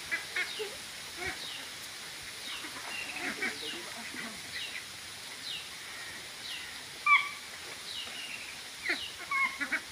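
A flock of domestic ducks calling softly: a steady run of short, high, falling peeps, with a few louder calls. The loudest call comes about seven seconds in, and more follow near the end.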